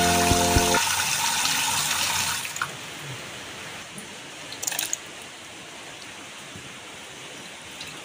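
Intro music cuts off about a second in, giving way to the rush of water boiling in a steel pot. Around two and a half seconds in this drops to a faint steady hiss, with a few light clinks.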